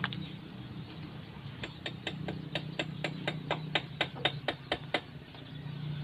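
Komatsu PC60 excavator's diesel engine running with a steady low hum. Over it comes a quick, even run of sharp clicks, about five a second, from roughly a second and a half in until about five seconds in.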